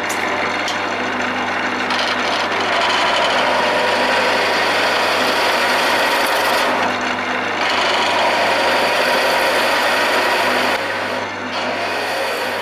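Wood lathe running under a steady motor hum while a skew chisel cuts along the spinning wooden leg blank, making a rough, rasping scrape. The cutting noise swells and eases as the tool travels along the taper, and is quieter for the last couple of seconds.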